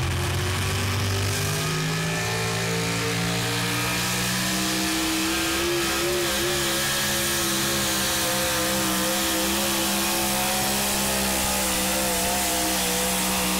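A pulling truck's engine at full throttle, dragging the weight-transfer sled. Its pitch climbs over the first second and a half, then holds steady at high revs, wavering briefly about six seconds in.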